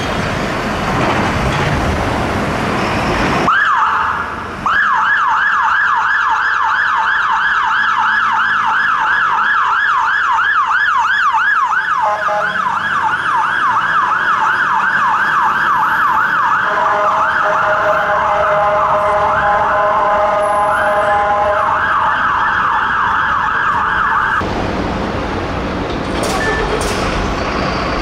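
Siren of a Mercedes-Benz Econic fire engine turntable ladder on an emergency response: a fast yelp sweeping up and down about four times a second, its pattern changing part way through with lower steady tones mixed in, cutting off abruptly near the end. Heavy truck engine noise comes before the siren starts and after it stops.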